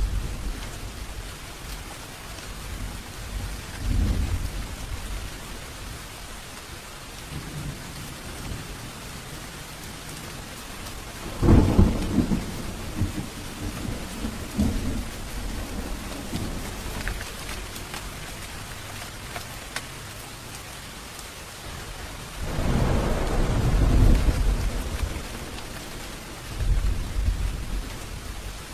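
Steady heavy rain falling, with several rolls of thunder over it. The loudest thunderclap breaks suddenly a little before halfway, a long roll builds near the end, and shorter, fainter rumbles come early and at the very end.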